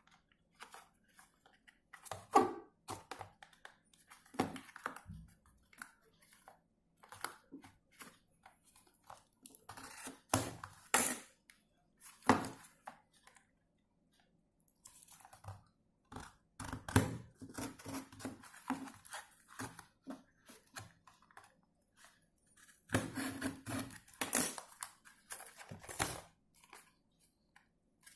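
Retail packaging being handled and opened by hand: irregular crinkling, tearing and rustling with sharp clicks, in short spells separated by brief pauses.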